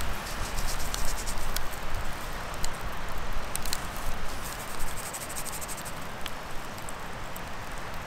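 Campfire embers crackling under a grill grate, with irregular sharp snaps over a steady rushing background.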